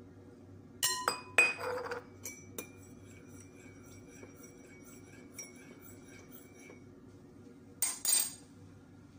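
Metal spoon clinking against a glass mixing bowl: a few sharp clinks about a second in, with the glass ringing on faintly for several seconds, then another pair of clinks near the end.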